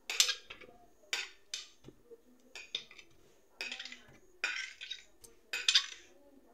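Kitchen utensils and dishes clinking and scraping as chopped pineapple is handled: a string of short, irregular scrapes and clicks.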